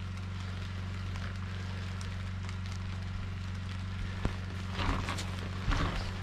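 Freezing rain falling steadily, over a steady low hum. About five seconds in come a few footsteps on icy snow.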